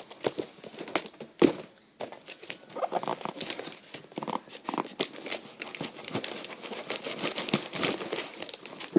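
Shipping box being opened by hand and its packaging handled, with a steady run of rustling, crinkling and small clicks. There is one sharp knock about a second and a half in.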